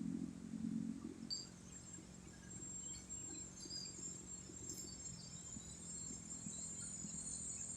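A heavy construction machine's engine running, dying down over the first second or so to a faint steady hum, with high, steady insect chirping.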